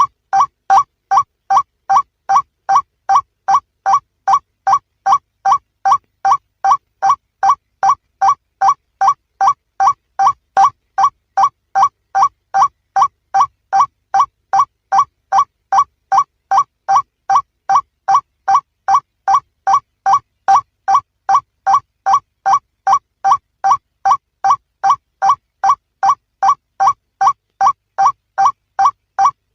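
Male white-breasted waterhen calling: a short call repeated at an even pace, about two a second, without a break.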